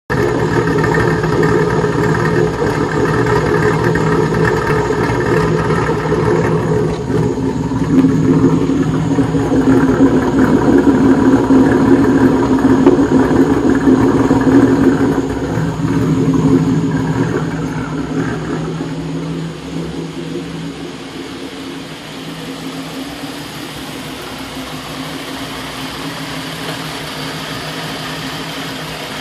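Vehicle engine idling roughly, a steady running sound that drops noticeably in loudness about two-thirds of the way through and then carries on quieter.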